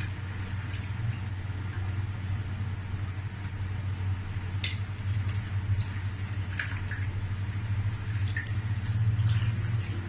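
Dried fish being handled and put into a pot of liquid: a few small clicks and soft wet splashes over a steady low hum.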